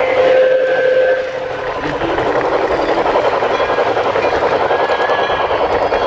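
LGB garden-scale model train running along its track, heard close up from a car of the train: a dense, rapid, steady rattle of wheels and drive. A steady tone sounds for about the first second.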